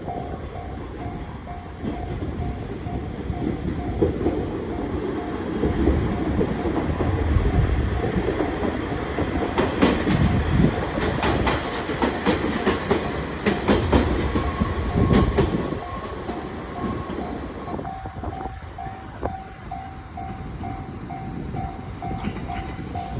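Level-crossing warning bell ringing in an even, repeating ding, drowned out for a while by an electric train passing over the crossing: a rising rumble, then wheels clacking over the rail joints. The bell comes through clearly again over the last few seconds as the train noise drops.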